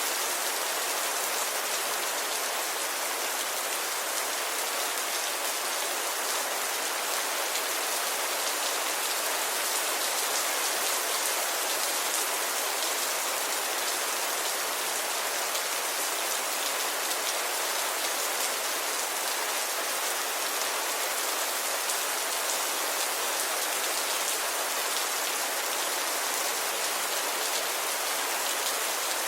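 Steady, heavy rainfall: a dense hiss of drops with fine pattering, even in level throughout.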